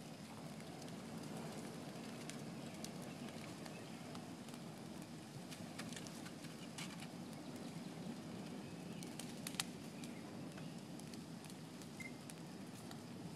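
Fire burning with a steady low rush and scattered sharp crackles and pops, one louder pop past the middle.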